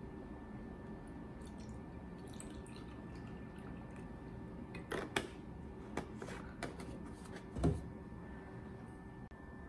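Milk pouring from a plastic jug into a glass over ice cubes, with a few sharp clicks midway. Near the end the jug is set down on a wooden table with a dull thud, the loudest sound.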